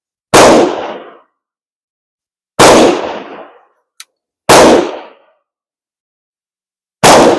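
Four gunshots, about two seconds apart, each a sharp report that dies away in under a second. The pace is too quick for one single-shot carbine.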